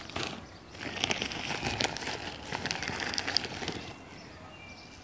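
Plastic bag crinkling and rustling as it is handled, a dense run of small crackles for about three seconds that dies away near the end.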